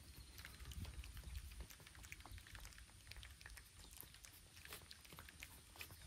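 Faint, irregular clicks and crunches of stray cats chewing their food, with light rain pattering.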